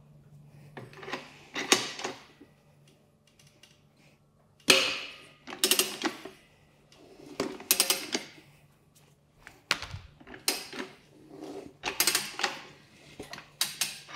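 Irregular metal clanks, scrapes and rubbery squeaks as the second bead of a worn touring tire is levered off its rim on a manual tire changer, over a faint steady hum.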